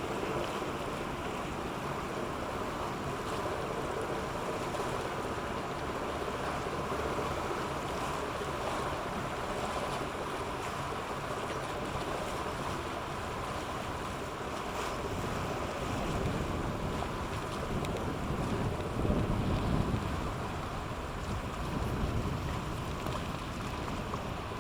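Coastal cargo ship passing in the strait, its engine a steady distant hum over water noise. Wind buffets the microphone in gusts through the second half.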